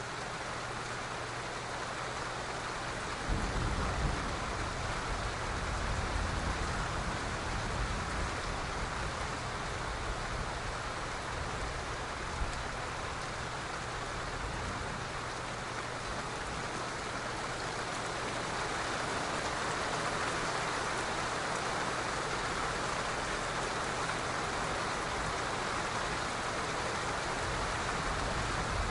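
Steady rain falling. About three seconds in, distant thunder starts a low rumble that rolls on underneath the rain.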